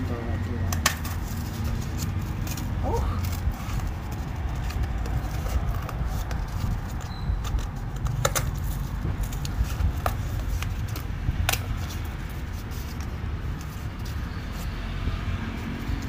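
Scattered clicks and taps of cardboard and paper craft materials being handled, over a steady low background rumble.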